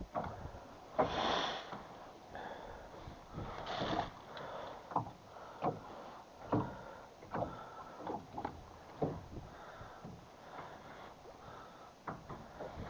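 Irregular light knocks and clatter of fishing gear handled in a small boat, with a couple of louder sniffs about one and four seconds in.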